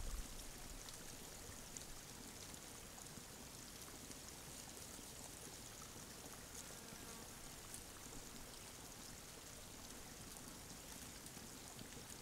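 Faint, steady hiss of outdoor background noise with a few light ticks; no distinct sound from the grazing stag stands out.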